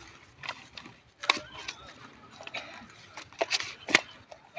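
Irregular sharp slaps and knocks from a nylon net full of live fish being handled on the ground, with the fish flapping against each other and the ground; two of the slaps come close together near the end.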